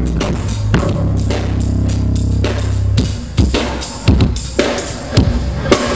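Band sound check: a drum kit playing over held low notes for about three seconds, after which the low notes drop out and the drums play single loud hits with gaps between them.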